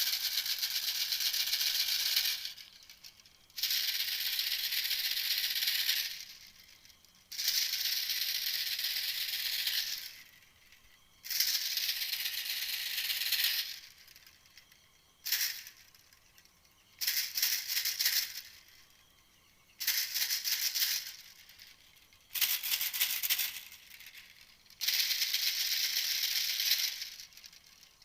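A recorded bird call played as a hunting lure: a dry, high rattle repeated in about nine bursts of one to three seconds, with short pauses between them.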